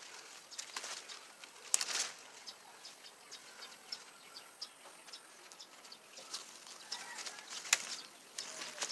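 Alagaw leaves rustling and crackling as a hand handles a leafy branch, with handheld-camera handling noise and two sharp clicks, one just under two seconds in and one near the end.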